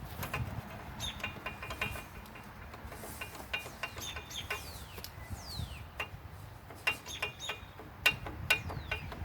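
Hand tools working on the bolts of a John Deere STX38 riding mower: irregular ratchet clicks and metal clinks as a bolt is worked loose.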